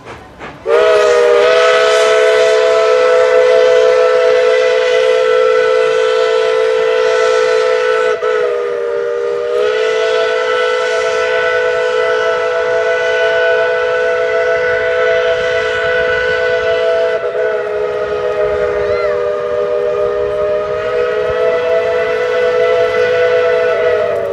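Whistle of Tweetsie Railroad's steam locomotive No. 12, a narrow-gauge 4-6-0, sounding one long chord of several notes. It starts about a second in, wavers briefly twice, and is held on.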